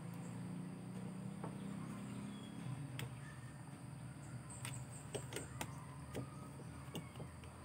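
Screwdriver working on screws in the plastic housing of a Makita HR2470 rotary hammer: scattered light clicks and taps of metal on plastic, most of them after about three seconds, over a low steady hum that fades after about three seconds.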